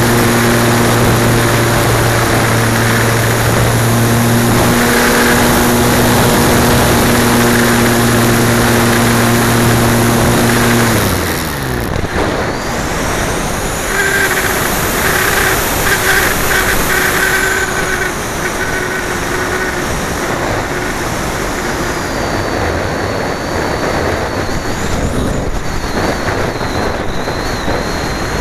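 Wind rushing over a keychain camera on a radio-controlled glider in flight. A steady low hum sounds with it at first, then slides down in pitch and stops about eleven seconds in, leaving only the airflow noise.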